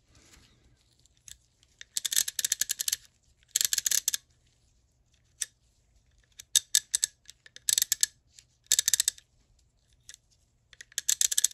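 Billings S-1410 Vitalloy 1/2-inch-drive box-head ratchet, just reassembled, clicking as its pawl rides over the gear teeth while the handle is worked: quick runs of sharp metallic clicks in about six short bursts, each under a second, with a single click in between.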